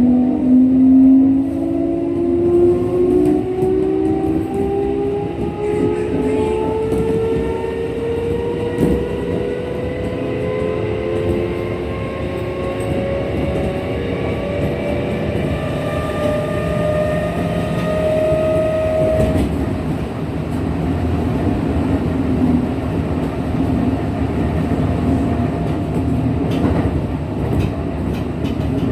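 Kintetsu 1233-series electric train running, heard from inside the car: the traction motor whine climbs steadily in pitch as the train picks up speed, with wheel and rail noise underneath. About two-thirds of the way through, the highest whine tone cuts off and the pitch stops climbing. This set is known for an unusual noise not heard on other 1233-series trains.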